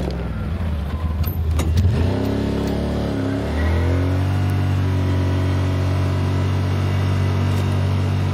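Side-by-side UTV engine running on a forest track. Its note dips and wavers in the first few seconds with a couple of sharp knocks, then rises about four seconds in as it speeds up and holds steady.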